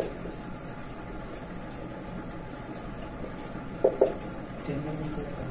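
A cricket trilling steadily in the background with a high, faintly pulsing note. A marker knocks on the whiteboard at the start and twice in quick succession about four seconds in.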